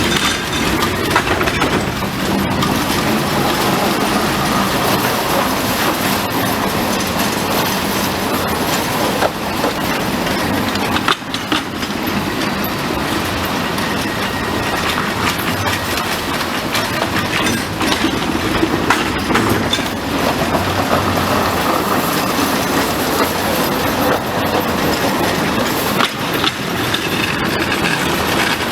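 Unmanned mine railway train of limestone ore cars running on the track: a steady, noisy clatter of wheels and cars with many small knocks.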